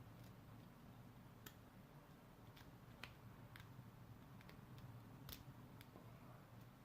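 Faint, irregular metallic clicks of a lock pick working the pins inside a Squire SAL 40 padlock during single pin picking, about nine small ticks spread over several seconds.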